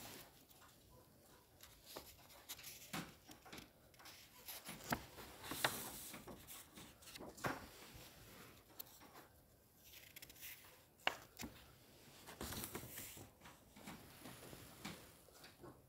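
Faint handling of a paper book: pages being turned, with scattered soft clicks and a couple of brief paper rustles.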